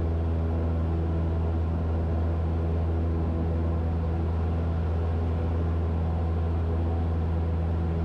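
Cessna 172's piston engine and propeller droning steadily inside the cabin as the plane climbs out after takeoff at climb power: a deep, even hum with no change in pitch.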